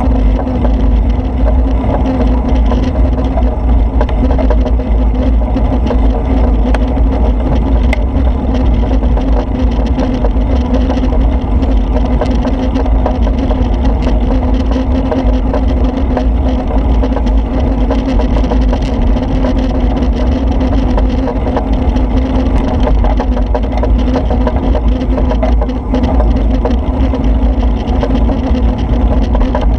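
A vehicle driving steadily along wet streets in the rain: a continuous low rumble with a steady hum over it, unbroken throughout.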